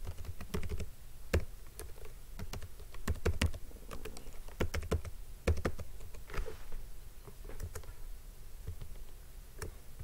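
Typing on a computer keyboard: irregular keystrokes, closely spaced for the first few seconds and sparser in the second half.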